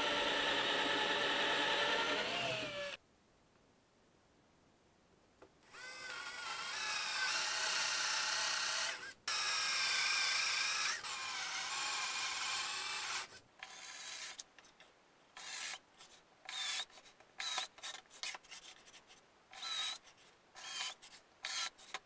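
Cordless drill boring into film-faced plywood with a Forstner bit, the motor whining under load as the bit cuts. It stops dead about three seconds in, runs again for several seconds with its pitch wavering, then gives way to a string of short stop-start bursts of drilling.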